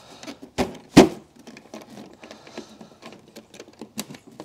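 Knocks and clicks of the Eahora Knight M1PS electric scooter's battery cover being worked back into place over the battery. Two knocks come about a second in, the second the louder, then light clicks and rattles as it is fiddled onto its hooks.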